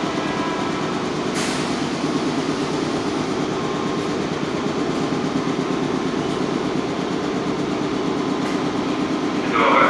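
A red Meitetsu electric commuter train standing at an underground platform, its equipment humming steadily. There is a short sharp clank about a second and a half in. Right at the end a louder, brief pitched signal sounds.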